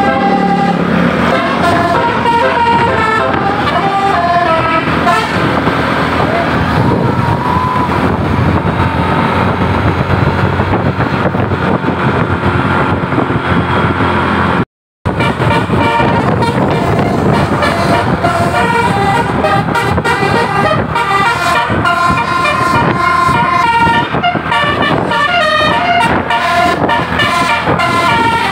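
Bus basuri horn, a multi-note musical horn, playing a tune in stepped notes over the rumble of the running vehicle. The sound cuts out completely for a moment about halfway through.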